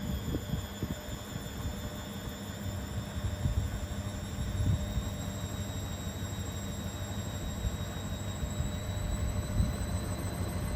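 Beko washing machine running with its counterweights removed: a motor whine slowly rising in pitch over irregular low thumps from the unweighted drum.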